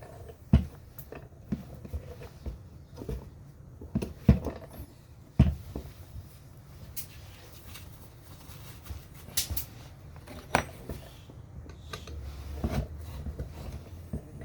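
Scattered knocks and clinks, a dozen or so at uneven intervals: hand tools and scooter parts being handled and set down while the wheel is worked on.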